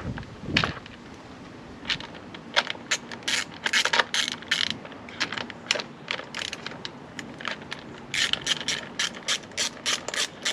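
Rapid mechanical clicking in irregular bursts, densest about a third of the way in and again near the end.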